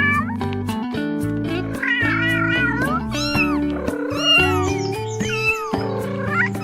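A cat meowing repeatedly, about five drawn-out, wavering meows, over background music with a steady beat.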